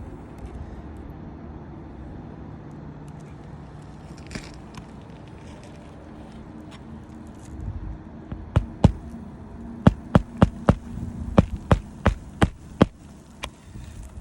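A steady low hum, then from about halfway a run of a dozen or so sharp knocks or clicks at uneven spacing, a few a second.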